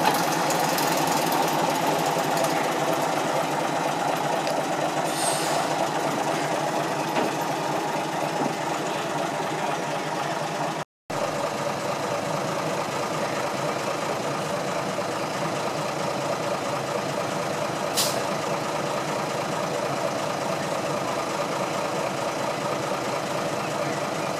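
Diesel engine of a small four-wheel diesel shunting locomotive running steadily. There is a brief hiss about five seconds in, the sound cuts out for a moment near the middle, and there is a single sharp click later on.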